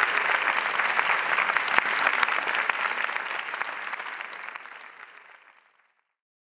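Audience applauding, a dense clatter of hand claps that fades out steadily to silence a little under six seconds in.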